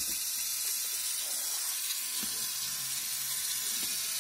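Small battery-powered motor of a K'NEX toy car running steadily, turning the wheels through its plastic gears while the car is held off the ground: an even whir, with a low hum joining about halfway through.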